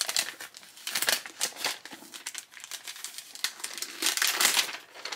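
Gift wrapping paper crinkling and rustling in irregular bursts as a wrapped hardcover book is unwrapped by hand, busiest about a second in and again around four seconds in.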